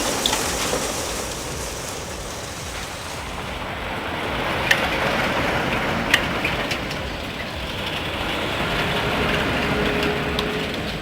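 Logging truck driving on a rough road: steady engine and road noise, with two sharp knocks about five and six seconds in.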